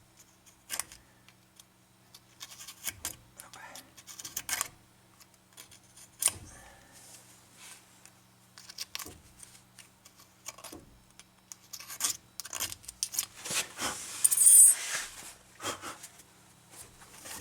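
Metal brake parts and hand tools clinking and knocking in irregular single clicks, with a longer stretch of scraping and rubbing near the end.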